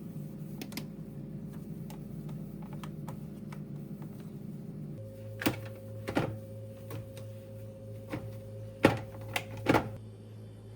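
Household items being handled: light scattered clicks and a few sharper knocks, the loudest about nine seconds in, over a steady low hum.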